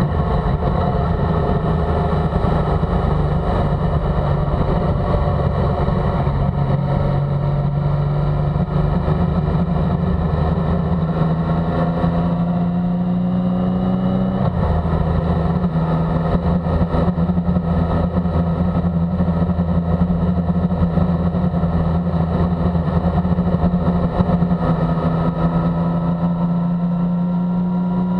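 Motorcycle engine under way on the road, its pitch climbing slowly as it pulls through a gear, dropping sharply at an upshift about halfway through, then climbing again.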